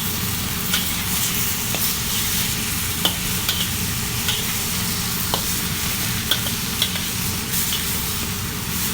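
Chopped chicken sizzling as it is sautéed in a pan with garlic, onion, ginger and tomato. Scattered sharp clicks of a utensil against the pan as it is stirred.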